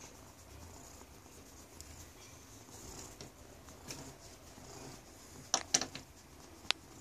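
Domestic cat purring softly as it is stroked, with the light rustle of a hand rubbing its fur. A few short sharp clicks come near the middle and toward the end.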